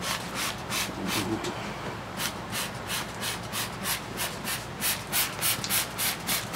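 Trigger spray bottle squirting soapy cleaner onto an outboard powerhead in quick, short hissing spritzes. A few come early, then after a short pause they run steadily at about three a second from about two seconds in.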